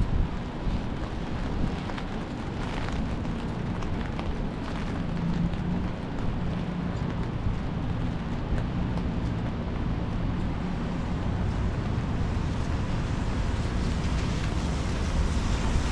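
Steady city street noise, traffic on rain-wet roads, with wind rumbling on the microphone.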